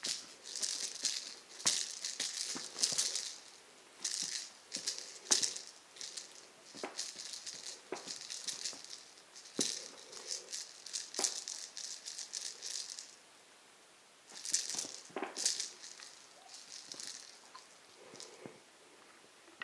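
The rattle ball of a feather wand cat toy shaken in irregular bursts of rattling as a kitten bats and grabs at it, with a few sharp knocks in between. There is a short lull about two-thirds of the way through.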